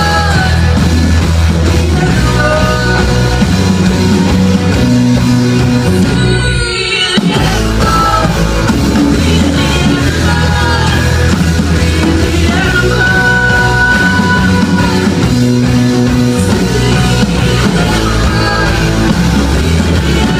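Rock band playing live and loud, with guitar, bass and drums. About six seconds in the bottom end drops out for roughly a second under a wavering, gliding line, then the full band comes back in.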